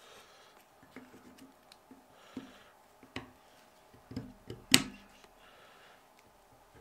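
Brake pads being fitted by hand into a Lotus Elan M100 rear brake caliper: a series of light clicks and knocks of metal parts, the loudest a sharp click a little under five seconds in.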